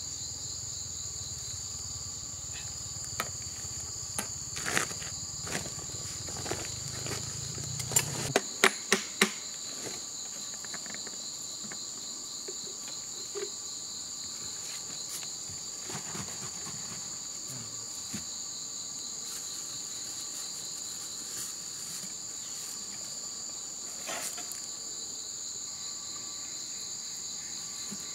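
Steady insect chorus holding two high pitches, with scattered sharp clicks and knocks in the first ten seconds, loudest in a quick cluster of four about nine seconds in. A faint low hum underneath cuts off suddenly about eight seconds in.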